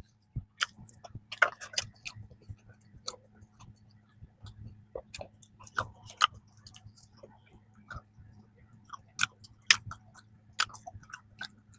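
Close-up chewing of soft bread: irregular wet clicks and smacks of the mouth, over a faint steady low hum.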